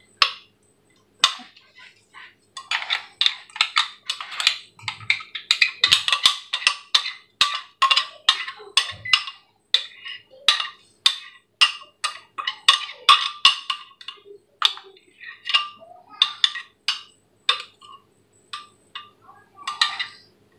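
Metal spoon knocking and scraping against a plastic blender jar to empty out thick chile purée: a long run of sharp, hollow knocks, a few a second and unevenly spaced, each ringing at the same pitch.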